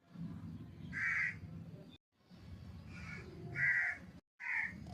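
Crows cawing: a harsh call about a second in and another past three and a half seconds, with a fainter one near the end, over a low background rumble.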